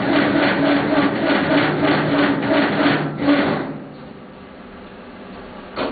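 Massey Ferguson 50D backhoe's diesel engine being cranked over by its starter, an even rhythmic chugging of about four beats a second that stops about three and a half seconds in without the engine catching: a failed cold start on a weak battery. A single sharp knock near the end.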